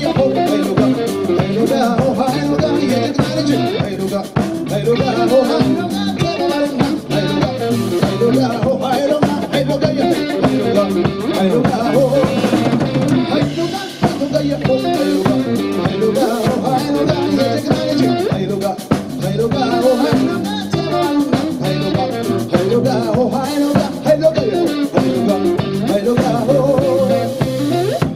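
Live band playing: electric guitar, electric bass and drum kit keeping a steady beat.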